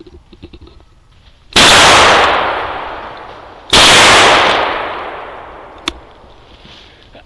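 Two loud gunshots about two seconds apart, each followed by a long echo dying away through the woods.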